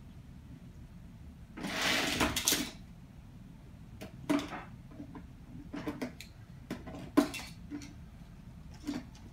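Toy monster trucks handled and knocked about on the floor: a scraping, rattling rush lasting about a second, about two seconds in, then a string of light clicks and knocks of the small toys against each other and the plastic hoop.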